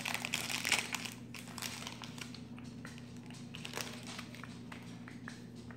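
Pokémon booster pack wrapper crinkling as it is opened by hand: a dense burst of crinkling in the first second, then lighter, scattered crinkles and ticks.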